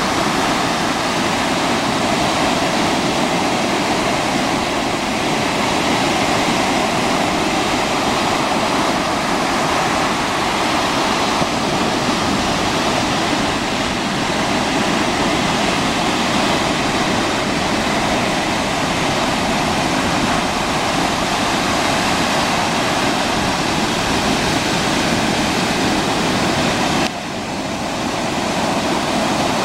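Ocean surf breaking and washing up a sandy beach: a steady, even rush of water with no let-up, dipping briefly near the end.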